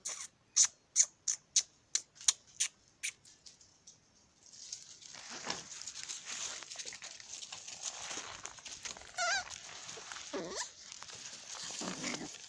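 About ten sharp clicks, fading, in the first three seconds; then puppies scampering over dry leaves with a steady rustle, broken by a few short squeaks and yelps as they start to play-fight near the end.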